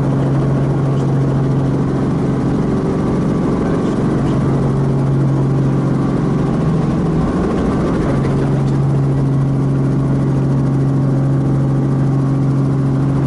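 Steady engine and rotor noise of a light helicopter heard from inside its cabin while it hover-taxis close to the ground. There is a strong, constant low hum under the roar, which wavers briefly midway.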